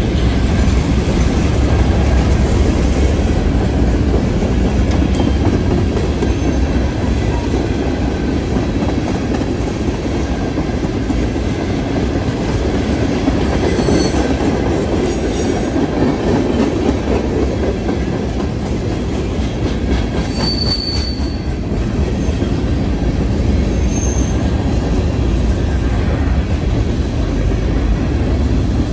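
Freight cars, covered hoppers and tank cars, rolling steadily past: a continuous rumble of steel wheels on the rails, with a few brief high-pitched wheel squeals around the middle.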